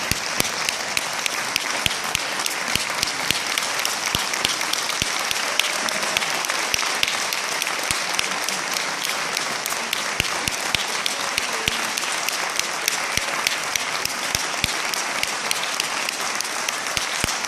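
Audience applauding steadily, with one pair of hands close by clapping loudly and evenly through it.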